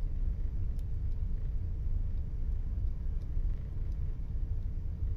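Steady low machinery rumble with a faint constant hum, typical of a ship's running machinery below deck, with a few faint ticks.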